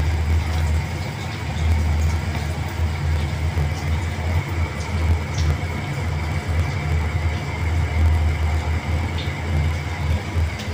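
Steady low rumble, with a faint steady high-pitched whine above it and a few faint light clicks.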